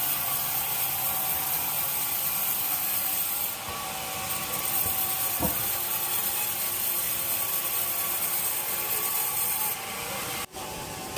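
Sawmill saw cutting through wood, a steady noise that breaks off suddenly for a moment near the end.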